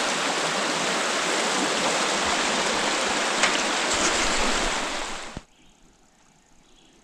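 The upper Hudson River running over rocks, a steady hiss of rushing water swollen by recent heavy rainstorms. About five seconds in it cuts off suddenly, leaving only a faint outdoor background.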